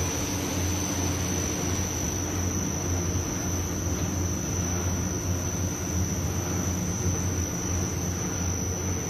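Brush polishing and sanding machine running steadily: its motors hum under an even hiss from the rotating bristle brushes, with a thin steady high whine above.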